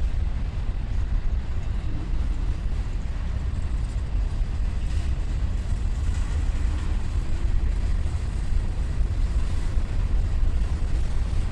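Freight cars of a slow mixed freight train rolling past, their wheels rumbling steadily on the rails.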